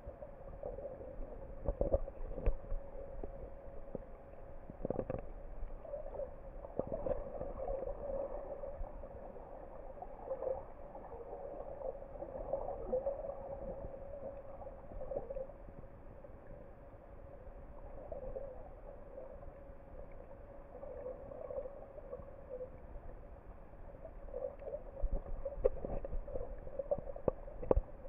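Muffled underwater sound picked up by a camera submerged in its waterproof housing: a steady hum that swells and fades, with a few sharp knocks, several of them near the end.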